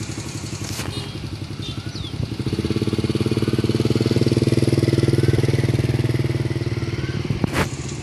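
Motorcycle engine running at steady low revs as the bike is ridden slowly past, growing louder for a few seconds and then fading. A sharp click comes near the end.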